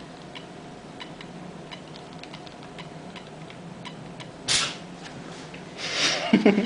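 HO scale model diesel locomotive creeping along the track, with faint, irregular clicking of its wheels over the rail joints over a steady low hum. A short hiss comes a little past the middle, and a louder burst of noise near the end.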